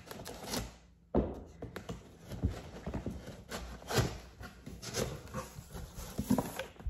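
A large cardboard shipping box being cut open and handled: a box cutter scraping along the top, then irregular knocks, scrapes and rustles of cardboard as the lid is pulled up, the loudest knock coming suddenly about a second in.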